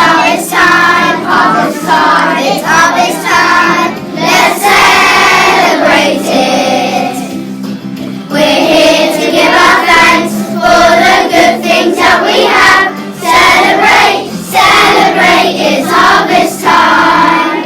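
Children's choir singing a harvest song over backing music, with a brief lull in the singing about seven seconds in.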